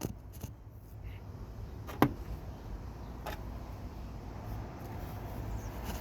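A sharp knock about two seconds in and a fainter one about a second later, over a steady low rumble.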